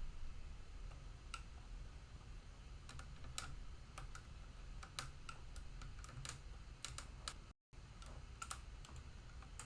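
Football trading cards being handled and flipped through: irregular light clicks and snaps of card stock, over a low steady hum. The sound cuts out completely for a moment about seven and a half seconds in.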